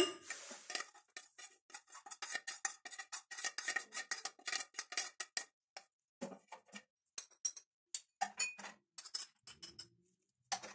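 Metal spoon clinking and scraping against small ceramic bowls as spices are scraped out into a plastic tub of chicken mince: faint, quick ticks and clicks, dense for the first few seconds, then scattered.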